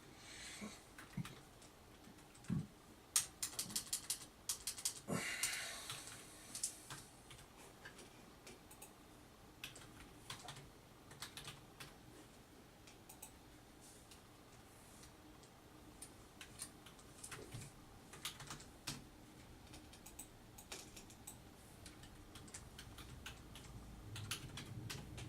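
Computer keyboard typing in irregular runs of keystrokes, with a quick run of keys about three seconds in and a short burst of noise about five seconds in, while filling in an account sign-up form.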